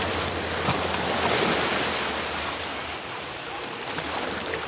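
Small sea waves washing up onto a sandy beach, a steady rushing surf that swells and eases. A faint low hum runs underneath and fades out about three seconds in.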